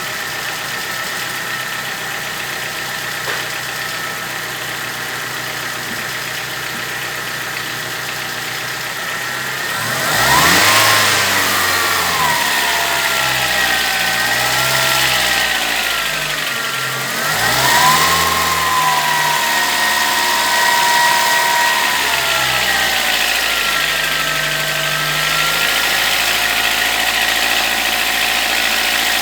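Volkswagen Gol G4 engine idling, then revved twice by hand, with a smaller rise in speed after the second rev, before settling back to idle. The owner says the revs bring out an odd noise that is absent at idle and that persisted after the engine was decarbonized; its cause is unknown to him.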